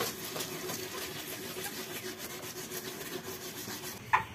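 Wet 2000-grit sandpaper rubbed back and forth over a yellowed plastic headlight lens, a steady scratchy scrubbing, with one short sharper sound near the end.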